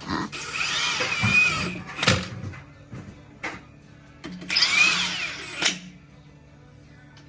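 A power drill whirring in two bursts, the first right away and the second about four seconds in, with a few sharp clicks between them and music playing underneath.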